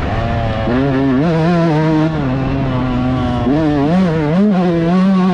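125cc two-stroke motocross bike engine revving hard, its pitch climbing, dropping and wavering over and over with the throttle and gear changes. A steady rushing noise runs underneath.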